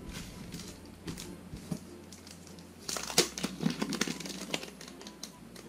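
Clear plastic wrapping on a pack of paper envelopes crinkling as the pack is picked up and handled, with a flurry of sharp crackles about three seconds in.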